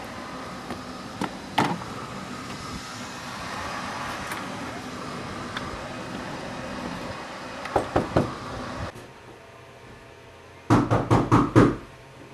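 Knocking on a house door: three quick knocks about 8 s in, then, against a quieter room background, a loud run of about six rapid knocks near the end. Before the knocks, a steady outdoor background hum with a couple of single sharp taps.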